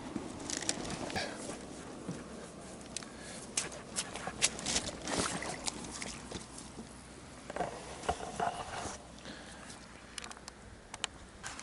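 Boats being pushed off and paddled: irregular knocks and light splashes of oars against the water and the hulls. Faint traffic from a road bridge hums in the background.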